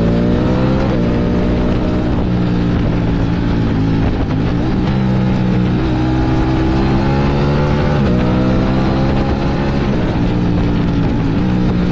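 Sport motorcycle engine accelerating through the gears: its pitch climbs steadily, then drops suddenly at each upshift, several times over, with wind rushing underneath.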